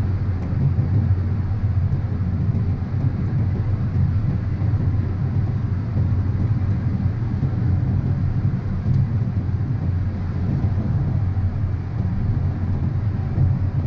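Steady low road rumble of a moving car, heard from inside its cabin.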